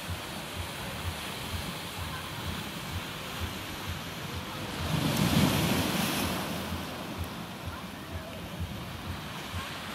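Small sea waves washing over a low line of rocks and up onto the sand, a steady surf wash that swells louder for about a second and a half near the middle. Wind buffets the microphone throughout.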